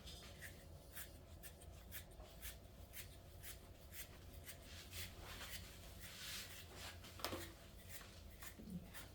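Coarse stripping knife pulling dead hair out of a dog's blown coat, faint scratchy strokes repeating about twice a second.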